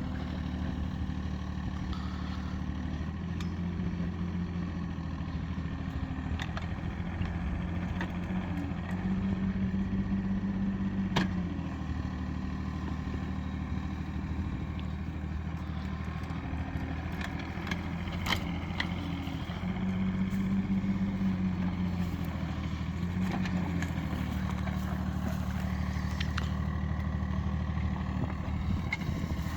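Mini excavator's diesel engine running steadily, its note rising for a couple of seconds at a time as the hydraulics take load, several times over. Scattered sharp clanks come through, the loudest about eleven seconds in.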